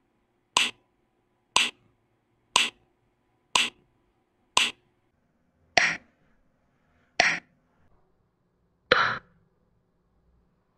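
Sharp test clicks from a latency-test app played through a TYLEX XM68 Bluetooth speaker. There are eight clicks: one a second for the first five, then at uneven, longer gaps.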